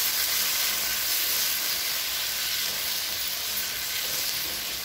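Beef pieces sizzling in a frying pan of tomato sauce with beer just poured in: a steady frying hiss that fades slowly.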